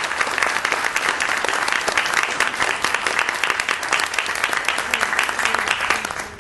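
Audience applauding steadily, a dense patter of many hands clapping, that dies away at the very end.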